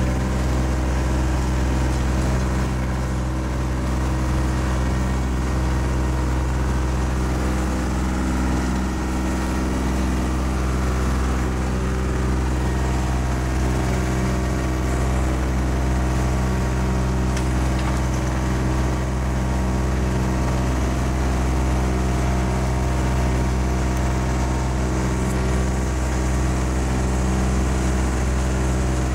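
Small fishing boat's engine running steadily while under way, an even low drone with no change in speed.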